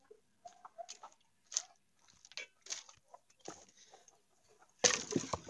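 Scattered faint crunches and scuffs, then about five seconds in a loud scrape and knock as wooden planks are pulled away from the opening of a mud-walled chicken coop.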